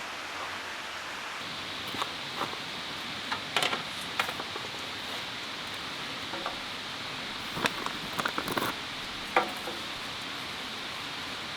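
Scattered light clicks and knocks of small objects being handled over a steady rushing hiss, with a steady high tone coming in about a second and a half in.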